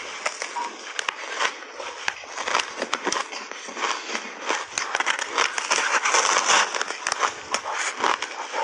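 Close-up crunching and chewing of a slab of ice coated in matcha milk powder: a dense run of sharp, irregular crackles and crunches as the ice breaks between the teeth.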